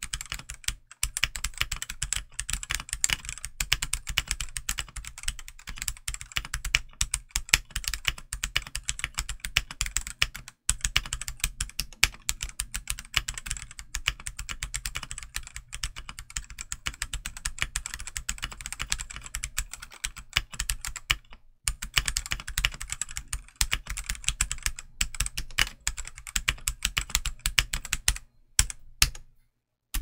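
Fast, continuous typing on a stock Redragon K673 Pro gasket-mount 75% mechanical keyboard, fitted with its stock Redragon Red linear switches and double-shot ABS OEM-profile keycaps. There are a few brief pauses, and it slows to a handful of separate keystrokes near the end.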